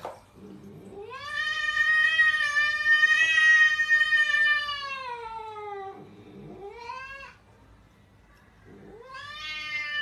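Domestic cat yowling. A long drawn-out call sags in pitch at its end, a short rising call follows, and another long yowl starts near the end.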